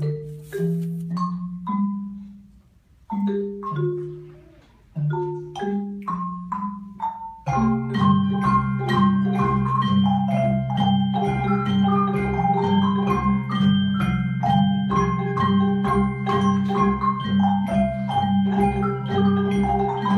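A children's mallet-percussion ensemble playing marimbas and xylophones. A few short struck phrases with pauses between them, then about seven seconds in the full group comes in with a steady low bass line under dense ringing notes.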